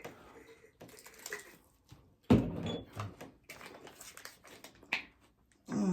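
Crisp clicks and crackles of crunchy hard-shell tacos being handled and bitten into, with one sharp knock about two seconds in.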